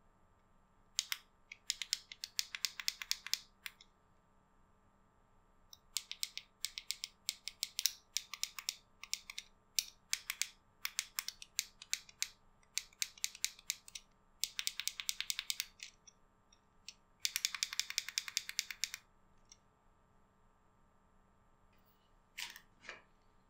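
Small push buttons on a Ulanzi VL40 pocket LED light being clicked in quick runs, several bursts of many clicks each. Two softer knocks near the end.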